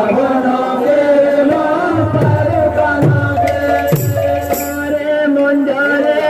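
Devotional kirtan music: voices chanting a held, stepping melody over double-headed khol barrel drums, whose deep strokes drop in pitch, about one a second from around two seconds in.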